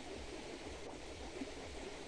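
Steady, low background hiss of outdoor ambience, with no distinct events.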